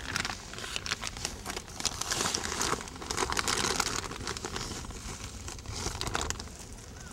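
Plastic bag of dry powdered fishing bait crinkling and rustling as a hand and measuring cup dig into it to scoop out the bait, with a fast patter of small crackles that is busiest in the middle.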